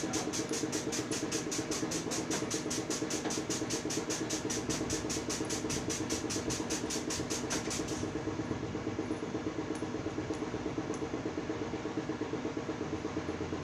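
A motor running steadily, with an even rhythmic pulse of about five beats a second.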